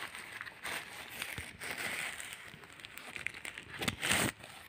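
Plastic packaging and a cardboard box rustling and crinkling as they are handled, in irregular bursts, with a louder rustle about four seconds in.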